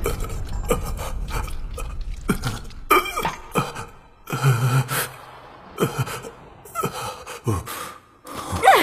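A man gasping for breath: a series of short, strained breaths with brief vocal sounds, coming every second or so.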